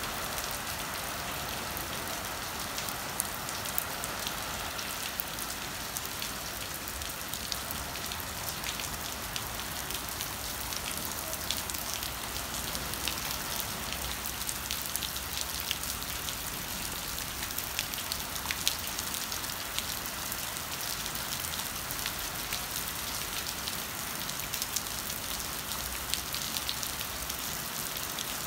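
Steady rain falling on wet paving stones and into shallow puddles: an even hiss with many small, sharp drop impacts through it.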